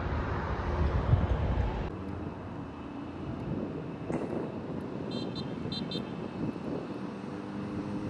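Wind buffeting the microphone for about two seconds. It cuts off abruptly into a steady distant engine hum, with four short high beeps from machinery about five to six seconds in.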